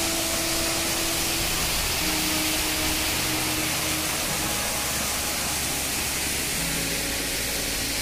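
Waterfall running at low flow, a steady rushing hiss of falling water, under soft background music of held notes that change every second or two.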